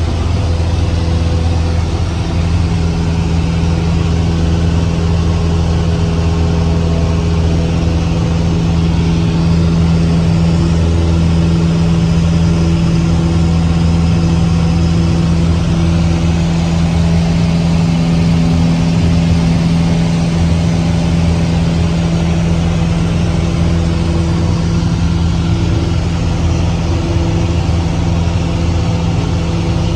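Cessna 150's four-cylinder Continental O-200 engine and propeller running steadily in flight, a constant low drone.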